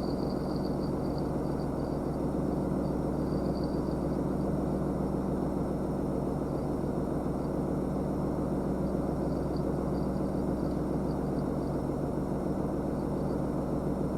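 A steady low mechanical hum, like an engine running, under an even hiss, unchanging throughout.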